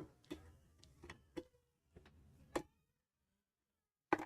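Sparse light clicks and taps of metal tool and machine parts as a part on a sewing machine is being unscrewed and opened, with the loudest tap near the end.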